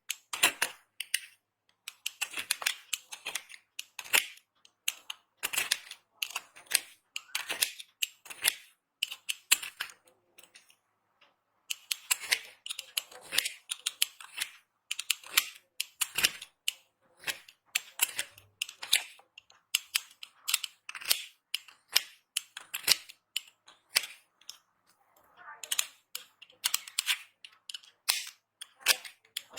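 Dry soap being cut and crushed: crisp crackling crunches in quick runs, with a short pause about ten seconds in.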